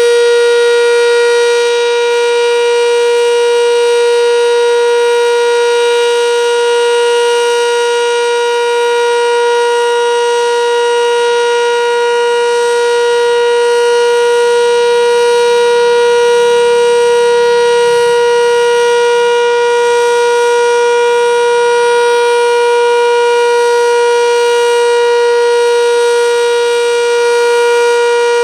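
Sentry 7V8-B outdoor warning siren sounding its steady Alert signal: one loud, continuous tone held at a level pitch without rising or falling, the standard steady signal used for a storm or tornado warning.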